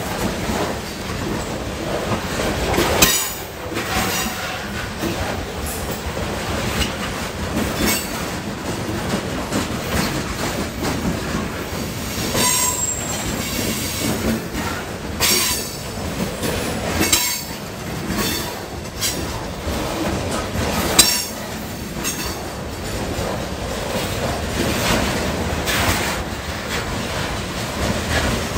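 Freight cars loaded with lumber rolling past close by: a steady rumble of wheels on rail with irregular clanks and knocks, sharp bangs about three seconds and twenty-one seconds in, and a brief wheel squeal about twelve seconds in.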